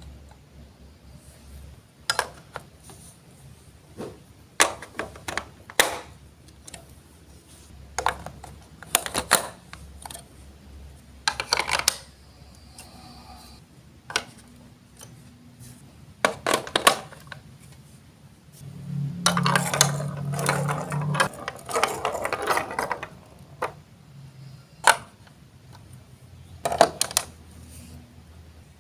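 Plastic Lego Duplo blocks and pieces handled and clicked together in separate sharp clicks and knocks, with a longer stretch of busy rattling clatter about two-thirds of the way in.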